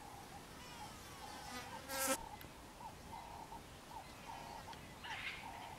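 Insect buzzing, its hum swelling and wavering in pitch over and over. A brief sharp noise comes about two seconds in.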